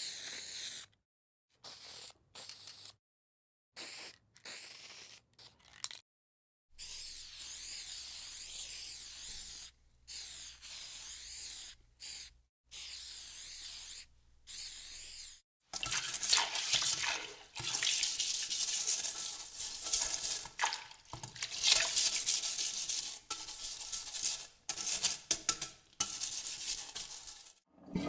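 A run of separate short sound effects cut one after another: short bursts of hissing noise broken by abrupt silences, then from about halfway louder, uneven, water-like noise.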